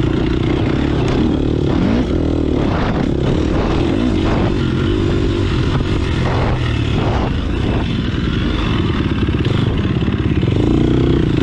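Motocross dirt bike engine heard from an onboard camera, revving and dropping in pitch as the bike speeds up and slows over the track, with a run of clattering knocks from the bumps in the middle.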